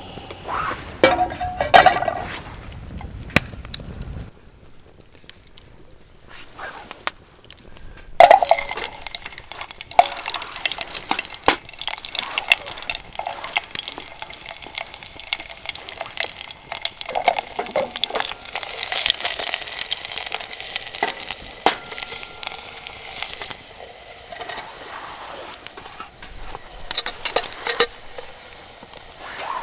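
Food sizzling in a pan or pot while it is stirred, with utensil clinks and scrapes against the metal; the sizzle runs strongest from about a quarter of the way in until about three quarters through.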